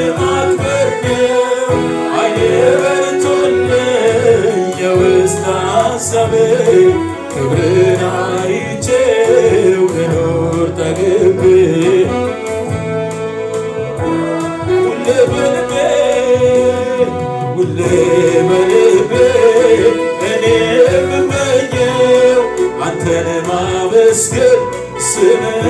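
A man singing an Amharic gospel worship song into a handheld microphone, with instrumental accompaniment.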